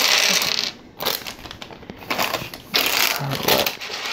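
Clear plastic LEGO parts bag crinkling as it is opened, in two loud bursts with a quieter gap between, along with small plastic LEGO pieces clicking and rattling against each other.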